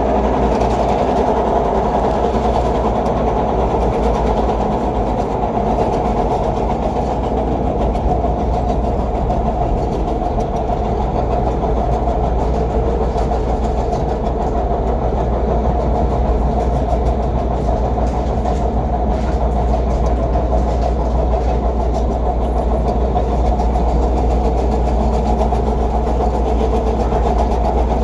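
CTA Purple Line rapid-transit train running at speed along elevated track, a steady, even running noise of the train and its wheels on the rails, heard from the rear car.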